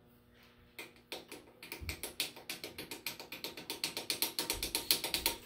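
Rapid, even metallic clicking, about seven clicks a second, starting about a second in, as a tight washer is worked onto the tricycle's axle with a hand tool.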